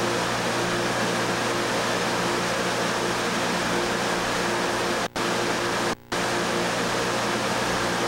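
Steady rush of water through a clear-pipe hydraulic model, with a low electric hum as from a pump motor. The sound cuts out briefly twice, about five and six seconds in.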